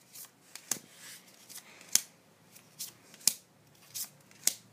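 Magic: The Gathering trading cards from a booster pack snapping and flicking as they are moved one by one from the front of a hand-held stack to the back. There is a sharp snap about every second and a quarter, with softer card ticks between.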